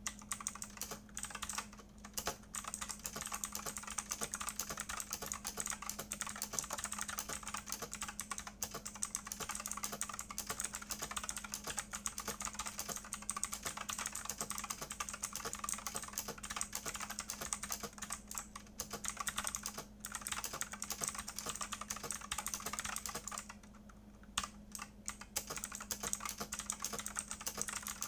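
Fast continuous typing on a mechanical keyboard with clicky Outemu Blue switches and ABS double-shot keycaps: a dense stream of sharp key clicks. The typing breaks off briefly a little before the end, with a faint steady hum beneath.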